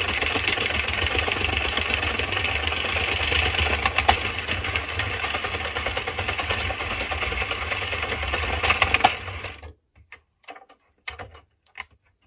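Addi Express Kingsize circular knitting machine being cranked steadily, its needles clattering round the ring as the test piece knits off and drops free of the needles. The cranking stops a couple of seconds before the end, leaving a few light handling sounds.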